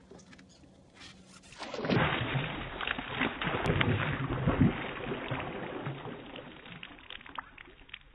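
Hooked largemouth bass thrashing and jumping at the surface, loud splashing water for several seconds. It starts about two seconds in and dies down near the end.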